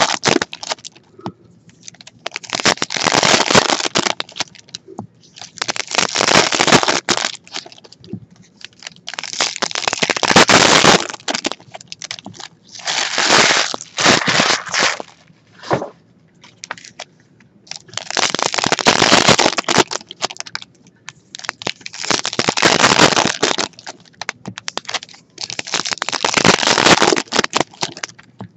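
Foil wrappers of 2016 Topps Stadium Club baseball card packs crinkling and crackling as they are torn open and handled, in about seven bursts of a second or two each.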